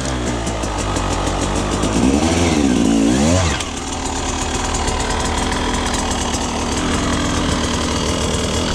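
Husqvarna 300 TE two-stroke enduro motorcycle engine dropping back from a rev at the start, blipped up and down once more about two to three seconds in, then idling steadily.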